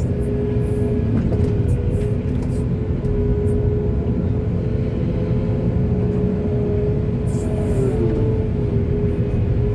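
Heavy diesel engine of an excavator running steadily under load, a deep rumble with a steady whine on top and a short shift in pitch about eight seconds in.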